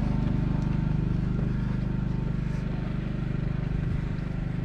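Small gasoline engine of wood-cutting equipment running steadily at an even speed.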